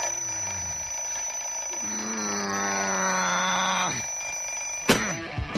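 Bedside alarm clock buzzing steadily on a high tone, with a low drawn-out tone through the middle. It stops with a sharp click near the end as it is switched off.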